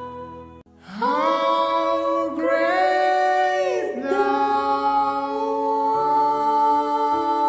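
A woman singing a slow worship song, her voice sliding between notes and then holding long notes, over soft steady backing music. The sound drops out briefly about half a second in, before the singing starts.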